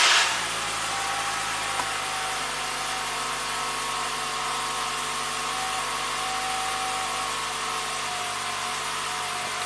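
2011 Toyota Camry engine just after starting: the start-up flare dies down in the first moment and it settles into a steady, even idle, heard from inside the cabin. It runs smoothly with no timing-chain rattle, now that the failed exhaust VVT phaser has been replaced.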